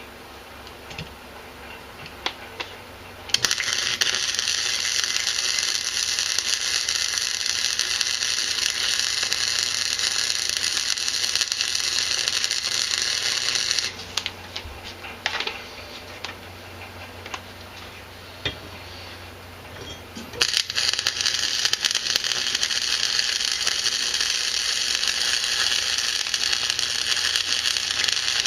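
Two long stretches of harsh metalworking noise from a welder or power tool working on horseshoe steel, one of about ten seconds and one of about eight, each starting abruptly. A shop fan hums steadily underneath.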